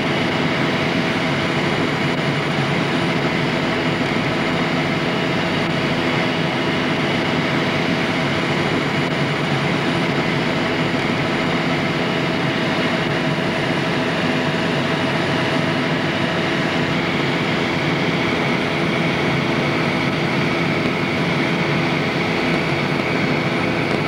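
Helicopter in flight, heard from on board: the engine and rotor running in a steady, unbroken drone with several constant hum tones over a broad rushing noise.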